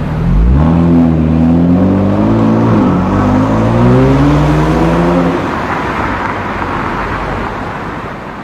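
Kia Stinger GT's 3.3-litre twin-turbo V6 through an aftermarket valved cat-back exhaust, accelerating with a rising engine note. The pitch dips briefly about three seconds in, like an upshift, then climbs again. The engine note drops away about five seconds in, leaving a steady noise that slowly fades.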